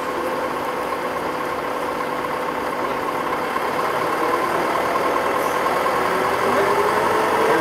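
Crane engine running steadily, then revving up with a rising pitch near the end as it hoists the bungee cage off the ground.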